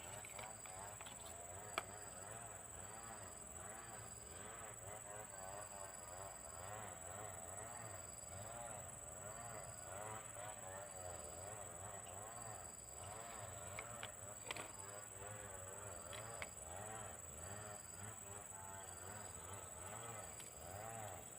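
Insects calling: a steady high-pitched buzz, with a second insect chirping in short pulses about once every second and a half, and a few faint clicks.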